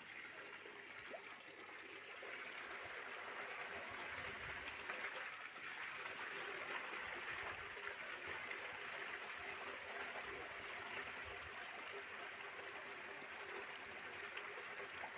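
Water splashing steadily into a concrete fish tank from an inflow pipe.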